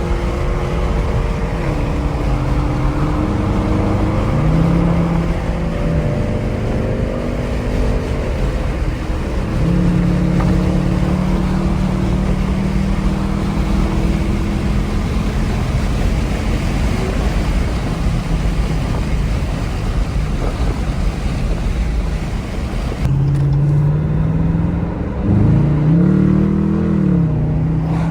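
Manual-transmission car engine under way, its pitch rising with acceleration and stepping down at each gear change, with a quick rev that rises and falls near the end.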